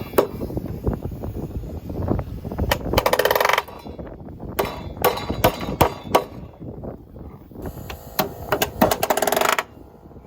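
Pneumatic palm nailer driving nails into metal purlin hangers: two bursts of very rapid hammering about a second long, with single sharp strikes between them.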